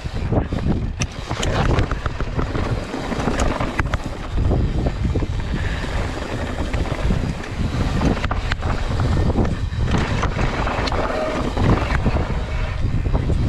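Wind rushing over the microphone on a mountain bike descent, with tyres rolling over rocky ground and frequent clatters and knocks from the bike.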